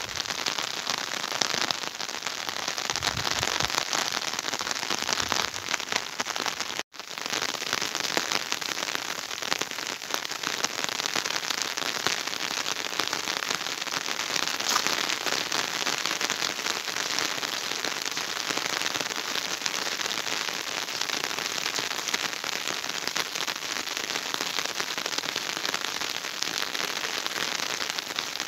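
Steady patter of rain falling on the ground, a dense, even crackle that cuts out for a moment about seven seconds in.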